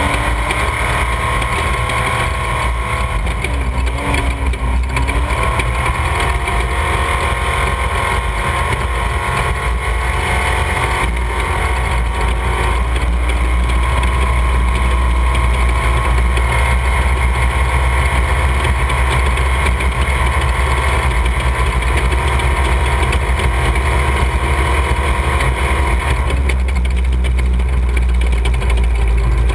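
Off-road race vehicle engines running steadily, with a couple of short rises in pitch in the first few seconds.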